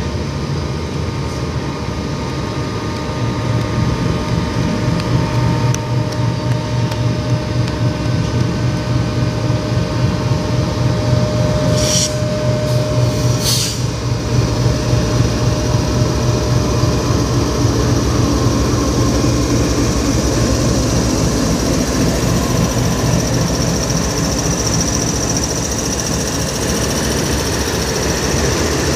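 A GEU-40 diesel-electric locomotive runs past with a steady low engine drone, pulling passenger coaches that then roll by with the rumble of wheels on rails. Two brief sharp high-pitched sounds come about twelve and thirteen and a half seconds in.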